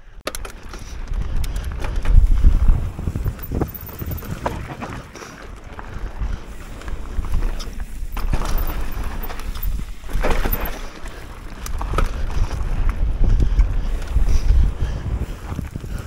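Wind buffeting the microphone of a mountain bike riding downhill on a loose dirt and gravel trail, with the low rumble rising over the first couple of seconds as the bike gathers speed. Scattered clicks and knocks from the tyres and bike over the rough ground.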